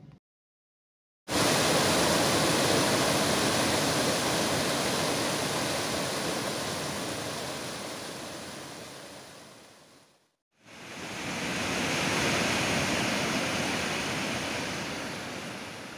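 Water rushing and splashing down a cascade, a steady rush of falling water. It fades out about ten seconds in, then a second stretch of rushing water fades in and fades out again near the end.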